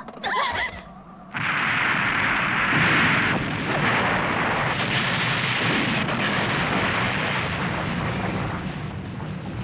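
Animated-film explosion sound effect of a high-rise blowing apart. It starts suddenly about a second in and carries on as a long, dense roar, loudest a couple of seconds after it begins.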